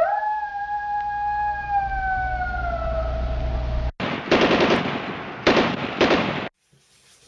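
Sound effects: a long wail held steady over a low rumble, falling in pitch before it fades, then several bursts of automatic gunfire that stop abruptly about six and a half seconds in.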